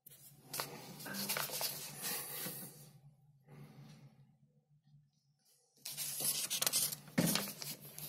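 Paper pages of a printed booklet rustling as they are handled and turned, in two bursts: one about half a second in lasting a couple of seconds, and another about six seconds in.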